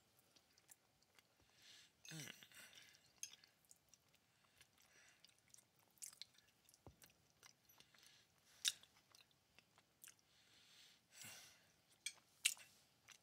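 Faint chewing of a mouthful of food, with scattered small mouth clicks and smacks.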